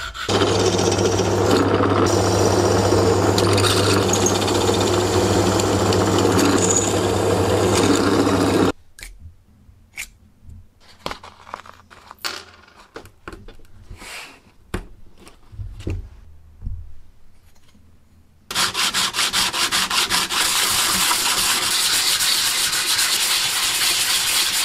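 A power tool grinding aluminium runs steadily for about the first nine seconds, then stops. A few light rustles and taps follow as sandpaper is handled. From about nineteen seconds in, an aluminium plate is rubbed back and forth on a sheet of sandpaper, making a steady scraping sound.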